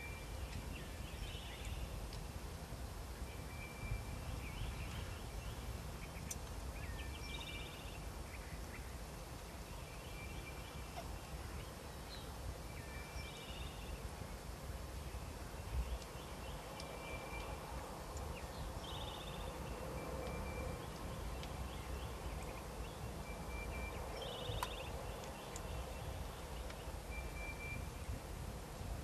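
Wild turkey toms in strut gobbling, against a background of other birds: a short high call repeating every two to three seconds, and brief chirpy calls about every six seconds. One low thump sounds about halfway through.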